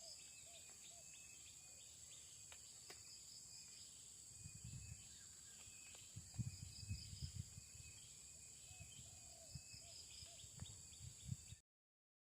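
Faint outdoor ambience of a steady insect chorus with repeated high chirps and a few short low calls. Low thumps cluster in the middle. The sound cuts off abruptly near the end.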